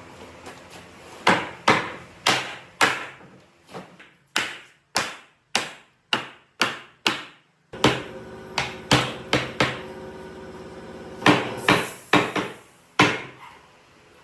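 Repeated hammer blows on wood, roughly two a second in uneven runs, each a sharp knock that dies away quickly.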